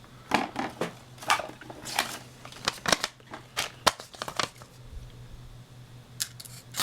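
Tanto blade of a Microtech Scarab clone OTF knife cutting into something in a series of short, irregular, scratchy slicing strokes, a test of its factory edge.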